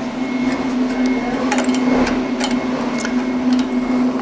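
Light clicks and taps of a steel pipe and small brass fittings being handled and set on a slotted steel welding table, over a steady low hum.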